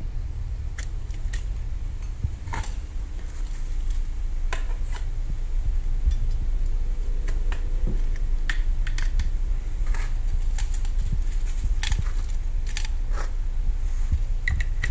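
Irregular light clicks and taps of carbon-fibre arm rods and their plastic ball-joint ends being handled and fitted onto a delta robot, over a steady low hum.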